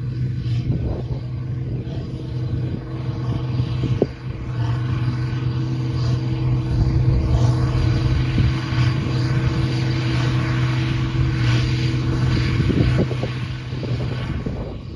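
International 5488 tractor's six-cylinder turbo diesel running steadily under PTO load, driving a New Holland BB940 big square baler. The baler's machinery clatters over the engine drone, with a sharp knock about four seconds in.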